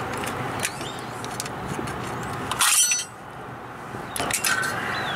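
Small metallic clicks of needle-nose pliers working at a brake caliper's pad retaining pins, with one louder, ringing metal clink a little over halfway through, over steady outdoor background noise.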